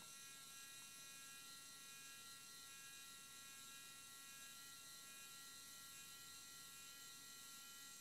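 SwitchBot Curtain's small electric motor running as it drives the curtain along its rail to the fully open position during calibration: a faint, steady whine.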